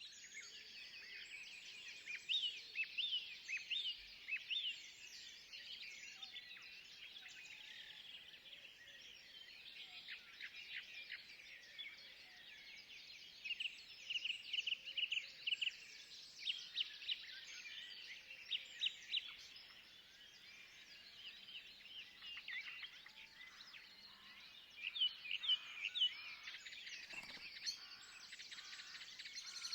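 Forest songbirds chirping and trilling, many quick repeated notes overlapping in a busy chorus over a faint background hiss.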